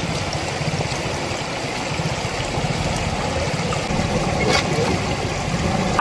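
Water rushing and splashing around a Tata Nexon as it drives through a shallow stream, with a low rumble from the car underneath.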